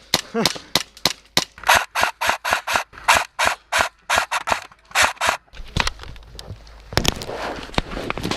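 Airsoft gun firing a fast, even string of single shots, about three to four a second, which stops about five and a half seconds in. A few more sharp shots follow near the end.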